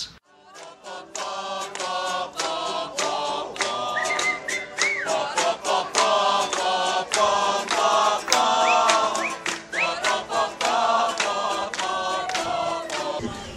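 A group of people singing together, with a small acoustic guitar strummed in a steady rhythm.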